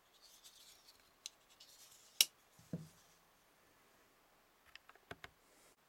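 Close handling noises: light rustling, one sharp click about two seconds in followed by a soft thump, and a few light clicks near the end.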